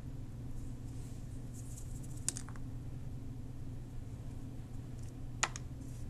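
Steady low hum with two light clicks of a tool handled on a wooden worktable, the second sharper, about five and a half seconds in, as the paintbrush is set down.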